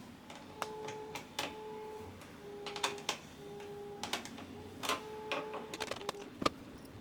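A small motor humming in short stretches of half a second to a second, starting and stopping again and again, among sharp clicks and knocks of hard plastic parts being handled.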